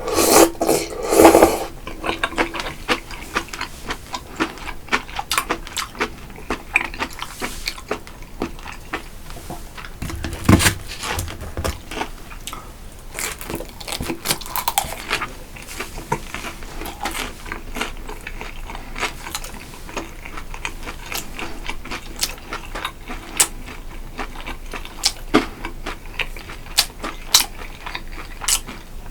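A person eating close to the microphone: steady chewing with many short, sharp mouth and utensil clicks. There is a louder burst in the first second and a half and a low thud about ten seconds in.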